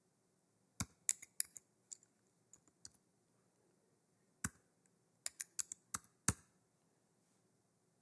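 Computer keyboard keys typed in two short runs of quick separate clicks, about a second in and again a little past the middle, as a phone number is entered.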